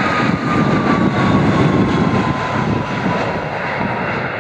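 Airbus A320-214's CFM56 jet engines passing close by on landing, a loud rushing roar that peaks about a second and a half in and then eases. A thin high whine slides slowly down in pitch as the airliner goes past.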